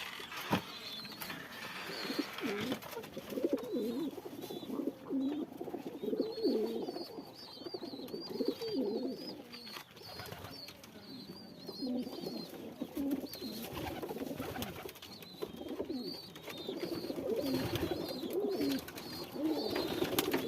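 Hungry pigeon squabs begging for food, with repeated thin, wavering high squeaks over low, warbling pigeon cooing that comes and goes.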